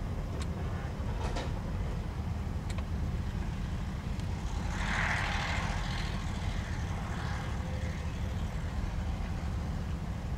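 Kobelco SK260LC excavator's diesel engine running with a steady low rumble, with a few light clanks in the first three seconds. About five seconds in, a louder rush of dirt and rocks pours from the bucket into the dump truck's steel bed, lasting about two seconds.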